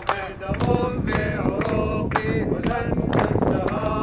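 A group of men chanting a protest slogan in unison, clapping their hands in rhythm about twice a second.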